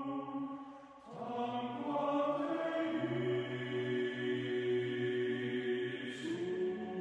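Background music: a slow chant-like vocal song with long held notes, moving to new notes about a second in and again near the end.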